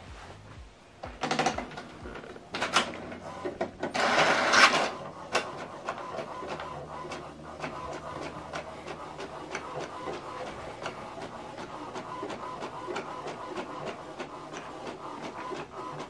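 HP DeskJet 3700-series inkjet printer printing a page: a few short mechanical noises in the first five seconds, the loudest about four seconds in, then steady printing with a regular clicking.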